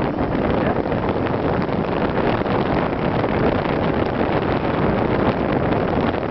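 Wind blowing across the microphone: a steady rushing noise.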